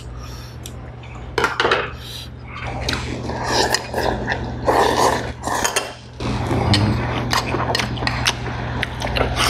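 Eating sounds: tongs and a metal spoon clinking against a steel pot and a small bowl in many sharp clicks, with slurping and chewing of spicy octopus stew in the middle of the stretch, over a steady low hum.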